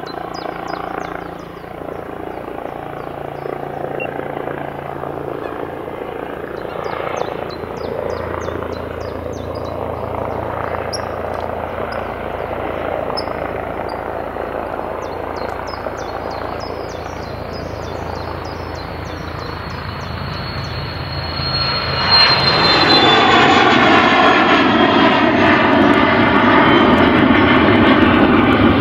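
Twin Pratt & Whitney Canada PW545B turbofans of a Cessna Citation XLS business jet at takeoff power. A steady jet rumble builds slowly during the takeoff roll. About three quarters of the way through it jumps much louder as the jet lifts off, with a whine of several tones falling slowly in pitch.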